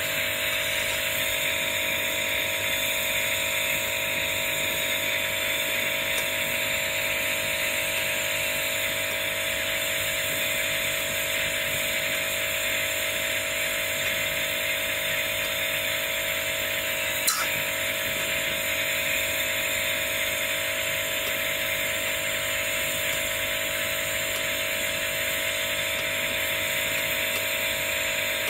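Gas torch flame hissing steadily while gold foil is burnished onto the heated copper cabochon. A single sharp click a little past the halfway point.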